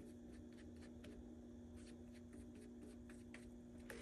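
Faint, soft scratching of a paintbrush mixing paint on a paper-plate palette, in short irregular strokes, over a steady low hum.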